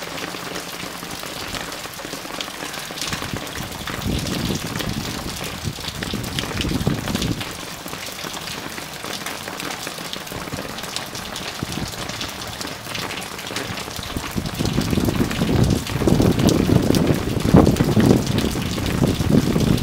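Steady rain falling, with many close, separate drop strikes on hard surfaces. The sound swells louder twice: around four seconds in, and again from about fifteen seconds in.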